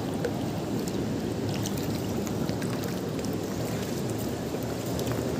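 River water rushing steadily past rocks, with a few faint clicks scattered through it.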